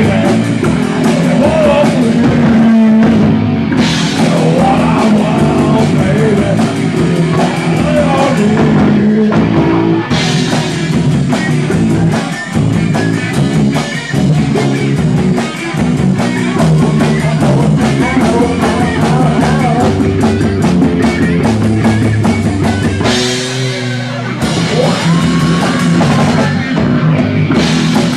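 Live rock band playing: electric guitar, bass and drum kit, with a singer on the microphone. Near the end the drums drop away for about a second under a held note before the band comes back in.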